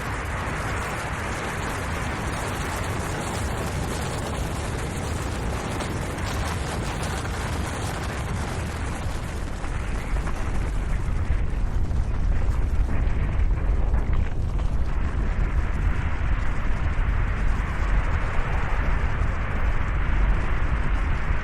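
Snow avalanche rumbling: a continuous deep, noisy rumble that grows louder and heavier about halfway through.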